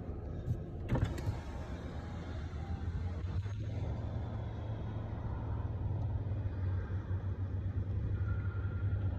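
A car engine running close by: a steady low hum that grows a little stronger after a few seconds, with one sharp knock about a second in.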